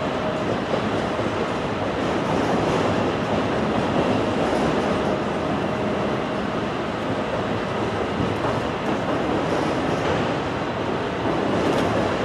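A passing train: steady rolling noise of steel wheels on the rails, with some clatter over the rail joints.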